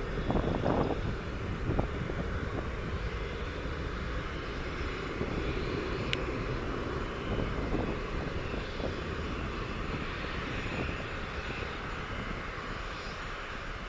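Jet engines of a departing Airbus A330-300 airliner: a steady, rumbling roar that slowly fades as the aircraft climbs away.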